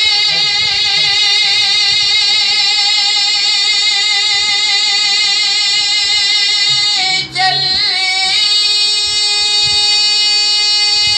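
A male singer's high voice reciting an Urdu naat, holding one long note with a wide vibrato. About seven seconds in, the pitch dips and breaks briefly, then the held note resumes.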